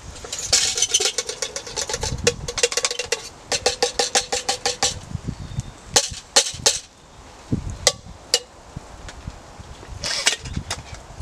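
Steel camping mug clinking and rattling rapidly for several seconds, its metal ringing through, then a few separate sharp knocks and a short rattle near the end.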